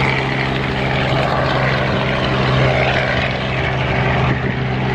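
Light helicopter's engine and rotor running steadily as it lifts off and flies low, a constant low hum with a rushing noise over it.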